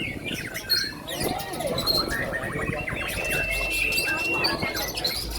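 White-rumped shama singing a fast run of varied whistles and chirps, with one long held whistle about three seconds in.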